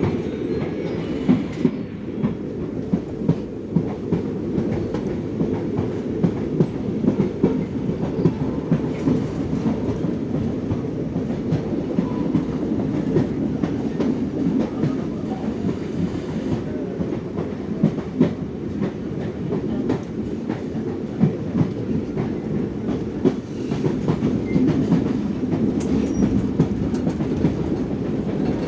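Train running along the track, a steady low rumble with the wheels clacking over rail joints again and again at uneven spacing.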